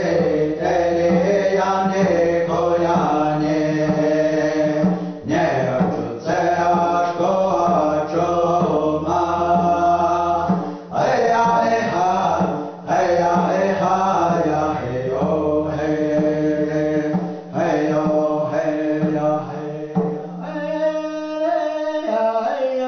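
Men singing a Pueblo song in the Keres language, several voices chanting together in long phrases with short breaks between them. Near the end the low part drops out and the singing carries on higher with sliding pitch.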